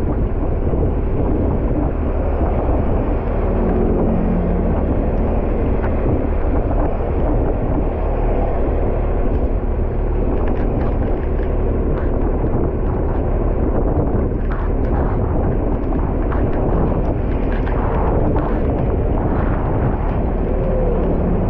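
Wind and heavy rain buffeting a bumper-mounted GoPro, a steady noisy rush over the low rumble of a fire engine's diesel running at a standstill.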